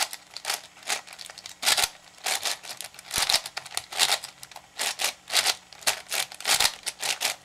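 Plastic layers of a 7x7 V-Cube being turned in quick succession, each turn a short rasping scrape, about two or three a second.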